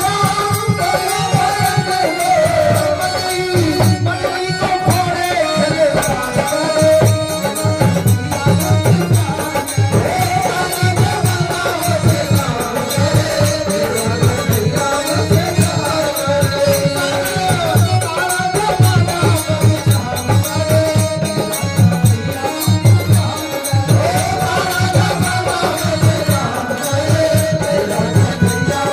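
Indian devotional folk music: a bending melody line over a steady, dense drum beat with rattle-like percussion.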